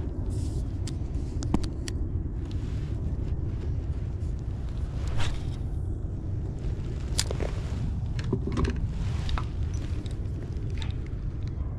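Steady low wind rumble on the microphone, with scattered light clicks and taps from a spinning rod and reel being cast and reeled. The sharpest click comes about five seconds in.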